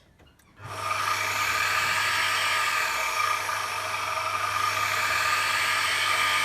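CNC milling machine's spindle motor switched on through its external on/off control input. It starts suddenly about half a second in and runs steadily with a whine.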